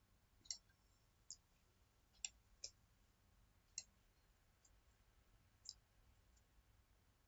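Faint clicks of a computer mouse, seven or eight separate clicks spaced irregularly, with a quiet room between them.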